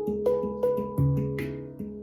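Instrumental music: a plucked string instrument picking notes about every half second, each ringing and fading, with a deeper note about a second in.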